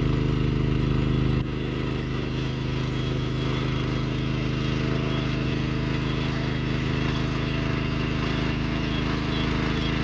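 Tractor engine running steadily while ploughing, with a sudden slight drop in level about a second and a half in.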